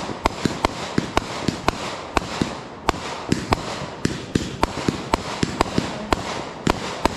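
Aerial fireworks bursting in rapid succession, about three or four sharp bangs a second over a continuous hiss.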